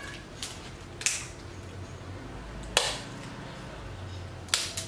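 Packing tape being pulled and torn off the roll in three short, sharp rips, one every second and a half or so, for taping foam pieces together. A faint steady hum runs underneath.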